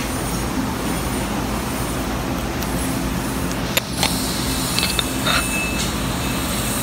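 TIG welding arc on carbon steel pipe: a steady hiss over a low hum, with a short dip and a couple of sharp clicks a little over halfway.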